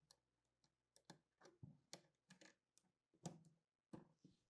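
Faint, irregular small clicks and taps, about a dozen, from a SIM card being inserted into the EPX400 communicator; the sharpest click comes a little past three seconds in.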